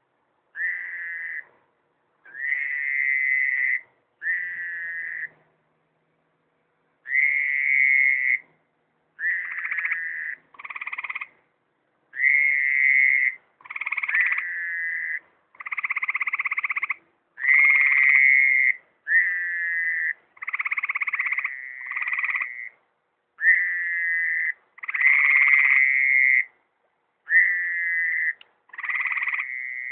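A chorus of frogs at a pond giving short trilled calls, each lasting one to two seconds, one after another every second or two. Several voices overlap, some lower-pitched than others.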